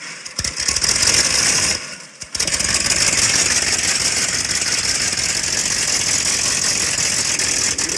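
Car engine starting and running with a rattly idle. It drops away briefly about two seconds in, then picks up again and runs steadily.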